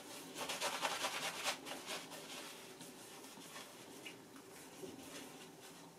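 Shaving brush working lather over a stubbled face, its bristles rubbing in quick, scratchy strokes for the first couple of seconds, then softer and sparser.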